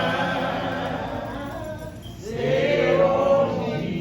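Voices singing a slow gospel song in long held notes: one phrase ends about two seconds in and another begins soon after.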